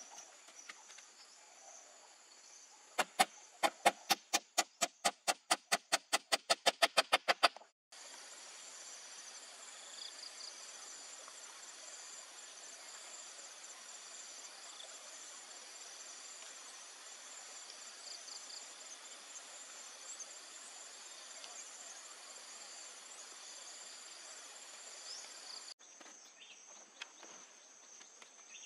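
A quick, even run of about twenty hard strikes of a hand tool on bamboo and wood, about four a second, followed by a long, steady, high-pitched chorus of insects.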